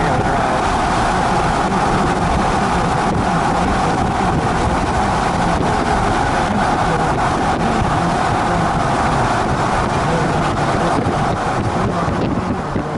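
Car driving along a highway, heard from inside: a steady rush of tyre and wind noise, wavering slightly near the end.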